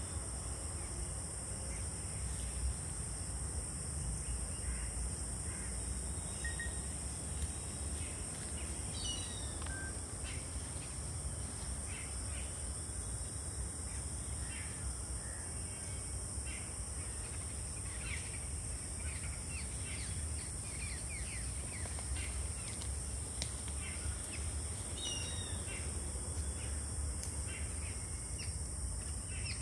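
Woodland ambience: a steady high insect drone with birds chirping now and then, including quick falling chirps about nine seconds in and again near the end, over a low rumble.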